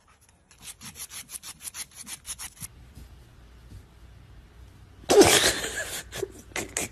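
Animal paws scraping and rubbing: a quick run of rasping strokes, about six a second, for the first couple of seconds, then a louder rubbing burst about five seconds in, followed by a few sharp taps.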